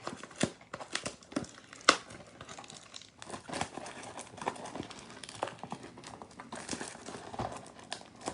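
Crinkling plastic wrap and cardboard tearing and snapping as a sealed blaster box of trading cards is opened by hand, in irregular crackles with a few sharper snaps.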